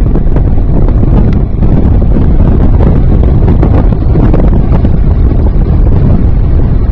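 Heavy wind buffeting the microphone over the steady rush of a JetCat 120 model jet turbine running.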